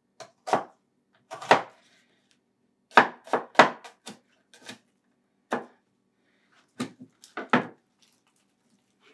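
Kitchen knife chopping an onion on a wooden cutting board: about a dozen single, uneven chops with pauses between them, several coming in quick succession around the middle.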